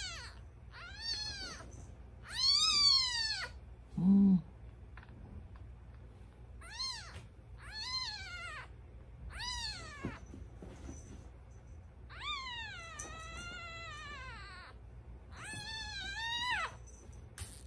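A newborn black kitten, about ten days old, mewing: about eight high-pitched cries that rise and fall in pitch, two of them long, as its bottom is rubbed with tissue to make it pee and poop. A brief low hum about four seconds in.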